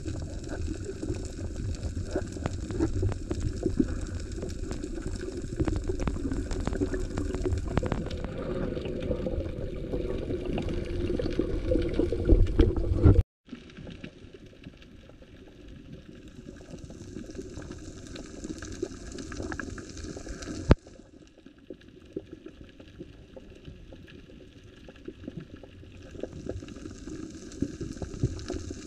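Underwater sound recorded by a camera moving over a reef: a bubbling, rushing water wash with many small clicks and crackles. It cuts out abruptly about thirteen seconds in and comes back quieter, with a single sharper click around twenty seconds.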